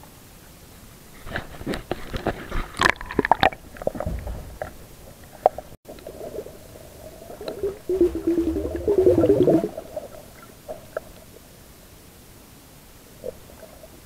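Water splashing and clicking a couple of seconds in, then muffled underwater gurgling and bubbling heard through a submerged microphone, loudest in a burst of about two seconds near the middle.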